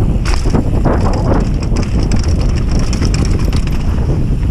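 Mountain bike riding fast down a loose gravel trail: heavy wind rumble on the microphone, with the tyres crackling over stones and the bike rattling in quick clicks.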